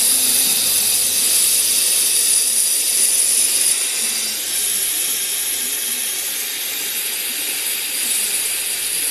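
Steam cleaner jetting hot steam through a car's air-conditioning ducts: a steady high hiss, a little louder for the first few seconds and then easing slightly.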